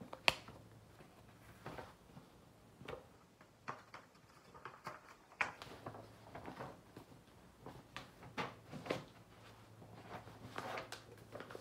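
Handling noises of a hardcover picture book being lowered and its pages turned on a tabletop: scattered light taps and rustles, the sharpest a click just after the start.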